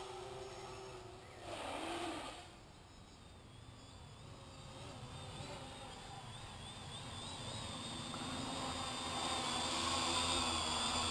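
X525 quadcopter's electric motors and propellers buzzing in flight, faint at first and growing steadily louder, with a high whine that wavers in pitch as the throttle changes.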